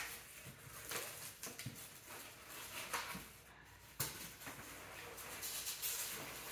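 Cardboard box and packing material rustling and crinkling as hands dig through it to pull an item out, with a few light knocks.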